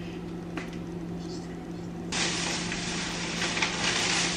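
Plastic grocery bag rustling and crinkling as it is handled, starting about two seconds in, over a steady low hum.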